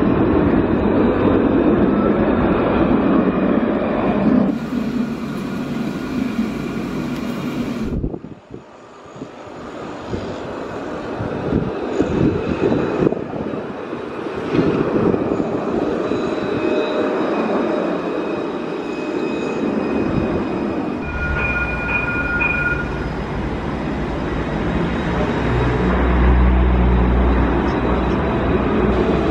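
Alstom Citadis low-floor trams passing by, in several short clips one after another. Steady high tones run through the rolling noise, and there is an abrupt cut about eight seconds in.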